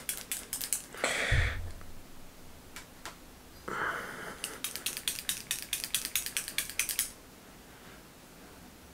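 Bottle of black nail polish being shaken, its mixing ball rattling in quick runs of sharp clicks: briefly in the first second and again for about three seconds from roughly four seconds in. A short hiss with a dull thump about a second in.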